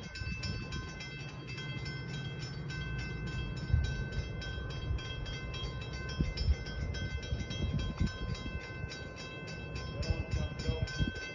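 Low rumble of a train, with scattered thumps and a steady high ringing of several tones over it.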